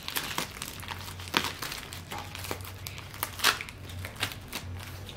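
Plastic packaging pouch crinkling as it is handled and opened, in irregular crackles, the sharpest about one and a half and three and a half seconds in.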